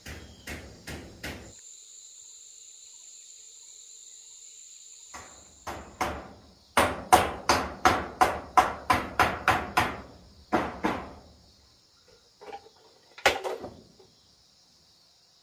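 Hammer driving nails into corrugated metal roof sheeting: a quick run of about fourteen blows at roughly four a second, then a few single knocks. A steady high insect drone runs underneath.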